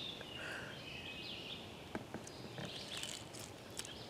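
Woodland songbirds chirping and singing, short high calls over a faint outdoor hush, with a couple of faint clicks about two seconds in.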